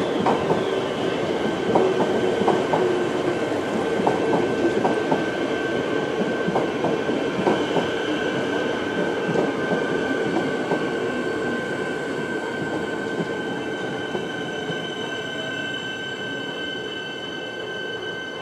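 Metro Trains X'Trapolis electric suburban train pulling into a station platform: wheels clacking over rail joints for the first ten seconds or so, then a falling motor whine as it brakes toward a stop, over a steady high-pitched whine.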